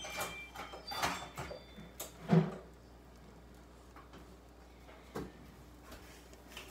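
Several knocks and clatters of things being handled at a kitchen counter, the loudest a single knock about two and a half seconds in; the rest is low room sound.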